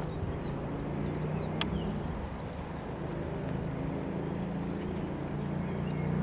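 Steady low engine hum, with faint short bird chirps and one sharp click about one and a half seconds in.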